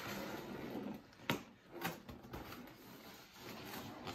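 Rustling as a balloon is handled and pressed against the wall to make it stick. There are two sharp clicks about a second and two seconds in.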